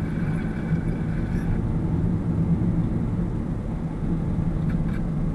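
Inside a moving car's cabin: steady engine drone and tyre noise from cruising along an asphalt road, with a faint high whine that stops about a second and a half in.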